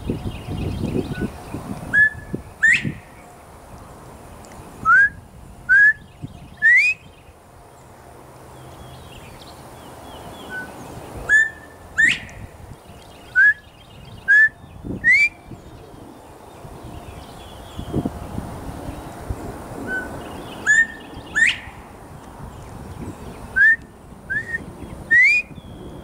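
Male northern bobwhite giving its loud rising 'bob-white' whistle, traded back and forth with a person whistling an imitation. There are three rounds, each a two-note call ending in a steep upslur followed a few seconds later by a group of three quick rising whistles.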